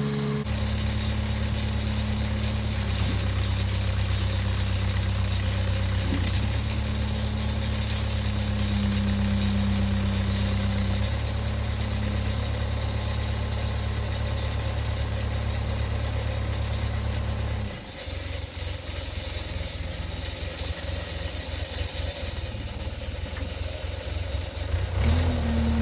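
Tractor engine running steadily. About eighteen seconds in it drops to a lower, uneven sound, then picks up again near the end.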